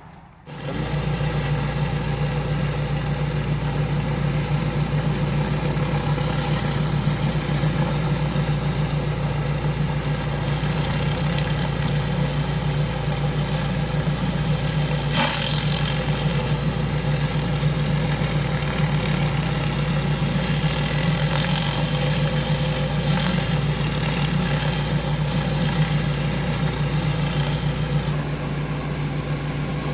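Pressure washer's gas engine running steadily, with a high hiss over it; the hiss weakens near the end.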